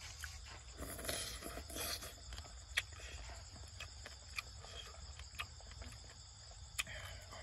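Steady chorus of crickets, over eating noises: chopsticks clicking sharply against a coconut-shell bowl four times, with slurping and mouth sounds about a second in.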